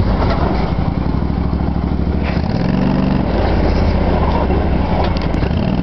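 ARGO Avenger 8x8 amphibious ATV driving over rough ground, its engine running loudly and steadily. The engine hum becomes clearer about halfway through and again near the end, with a few knocks from the ride.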